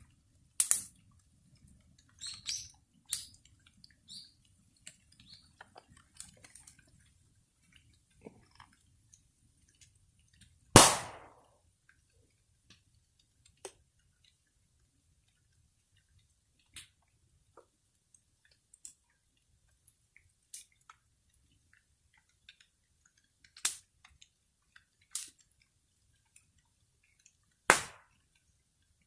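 Wood bonfire crackling: scattered sharp pops and snaps a few seconds apart, the loudest about eleven seconds in, over a faint low rumble during the first third.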